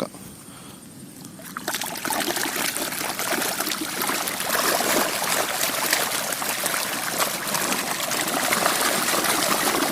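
Water splashing and churning as a crowd of African catfish thrash at the surface, scrambling for food thrown in. It starts about a second and a half in and carries on as a dense crackle of small splashes.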